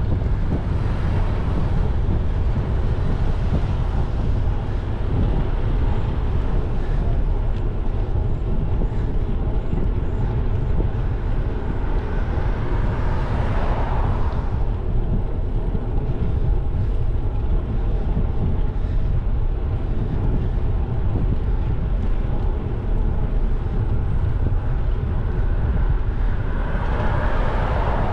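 Steady wind rumble over the microphone and tyre noise while cycling on an asphalt road. A passing car swells and fades about halfway through, and another approaching car grows louder near the end.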